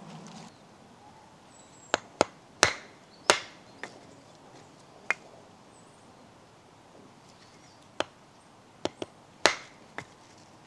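Hazel firewood being broken up: about a dozen sharp wooden cracks and knocks at irregular intervals, in two clusters with a quiet gap between them.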